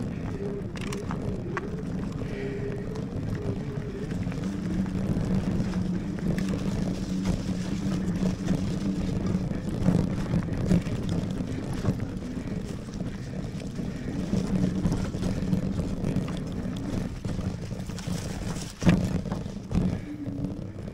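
Lectric Xpeak fat-tyre e-bike ridden on a dirt trail: the 750 W hub motor's steady hum under rough tyre-on-trail and wind noise. A sharp knock near the end, from the bike hitting a bump.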